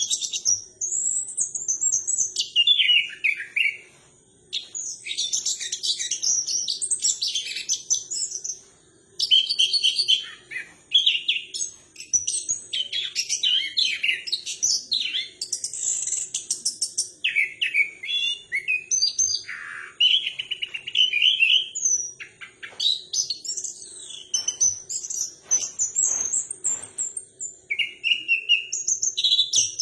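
A caged songbird singing a long, varied song of rapid high chirps, trills and sliding notes, with two short breaks about 4 and 9 seconds in. The keeper presents it as a bird in breeding condition running through its full song.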